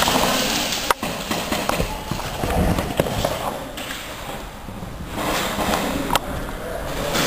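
Footsteps and movement of players in an indoor airsoft game, with a few single sharp cracks about one, three and six seconds in.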